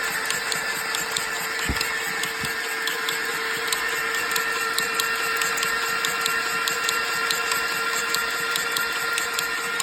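Mercedes-Benz OM642 3.0-litre V6 turbodiesel in a Sprinter 319 idling steadily, with a light tapping about twice a second over the engine note: the strange knock in the engine that the owner is trying to trace.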